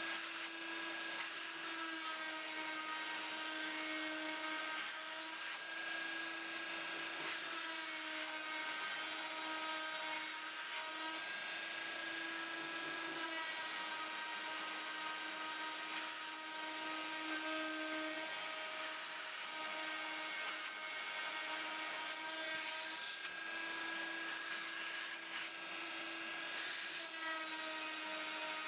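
Dremel rotary tool running as the spindle of a Sumpod CNC router, a steady high whine that swells and eases every few seconds as the bit routes a groove through a white-faced board. A steady rushing hiss runs under it from a vacuum nozzle drawing off the dust.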